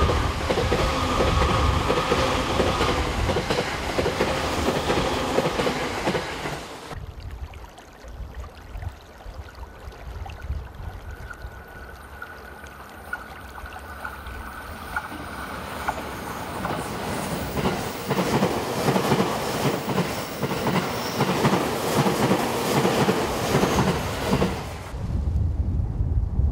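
Electric trains passing at speed, wheels clattering over the rail joints. The sound cuts off suddenly about seven seconds in to a quieter stretch, then another train approaches and grows louder, clattering, before cutting off abruptly near the end.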